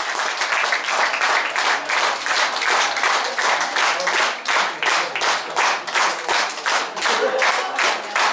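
Audience applause that settles into rhythmic clapping in unison, about two and a half claps a second.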